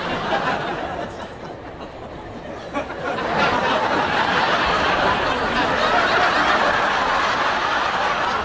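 Laughter: quiet chuckling at first, then from about three seconds in a louder, broad wave of audience laughter that keeps going.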